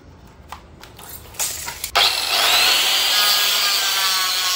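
A few light handling clicks, then about two seconds in an electric cutter machine with a diamond blade is switched on. Its motor whines up to speed and runs loud and steady, cutting a WPC panel strip.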